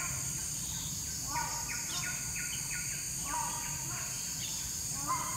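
Tropical rainforest ambience: a bird repeating runs of short, quick call notes every second or so, over a steady high-pitched insect drone.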